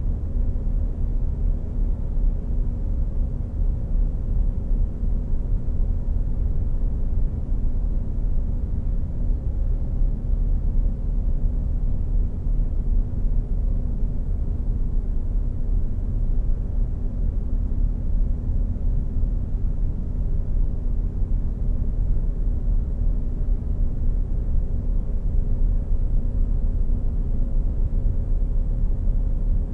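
Steady low rumbling drone with a faint steady hum in it, unchanging throughout: a sound-design bed for a spacecraft animation.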